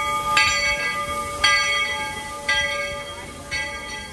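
Steam locomotive's brass bell ringing as the train pulls out of the station, about one strike a second, fainter with each strike as the engine moves away, over the low rumble of the train.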